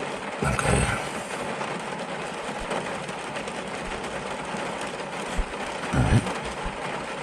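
Rain falling on a car's roof and windscreen, heard from inside the cabin as a steady hiss, with two low thumps, one about half a second in and one about six seconds in.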